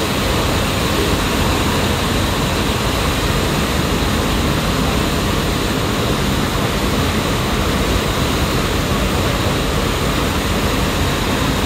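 Steady, unbroken rush of a ferry under way: engine drone and propeller wash churning the wake, with a deep rumble underneath.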